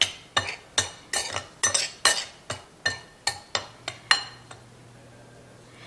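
A spoon or fork stirring seasoned flour in a bowl, clinking against the bowl about two to three times a second, stopping about four and a half seconds in.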